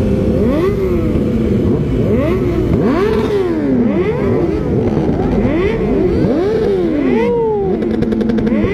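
Several sport motorcycle engines revving over and over while the bikes wait to start a race, their throttle blips overlapping, each one rising and falling in pitch.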